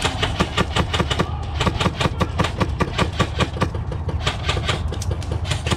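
Rapid airsoft gunfire: a fast, uneven run of sharp cracks and snaps, several a second, over a steady low rumble.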